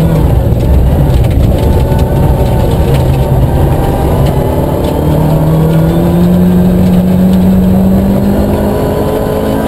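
Nissan Micra K11 rally car's engine heard from inside the cabin, worked hard at high revs on a gravel stage. The revs hold fairly level through the first half, then climb steadily as the car accelerates out of a bend.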